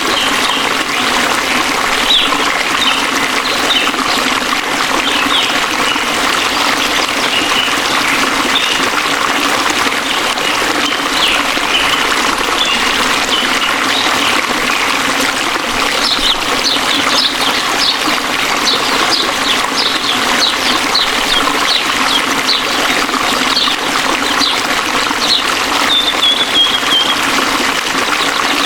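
Waterfall rushing steadily, with birds chirping over it; the chirps come thicker and faster in the second half.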